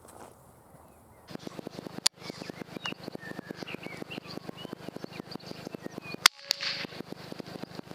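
Birds chirping outdoors over a fast, even clicking, with two loud sharp cracks about four seconds apart.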